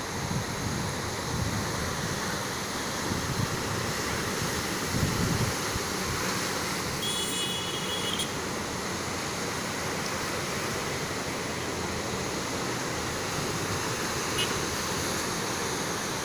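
Sea surf washing steadily on the shore, with wind buffeting the microphone. A brief high tone sounds about seven seconds in.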